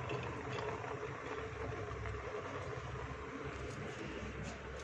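Steady low rumble and hiss of a lit gas stove burner under an open pressure cooker of heating water and greens.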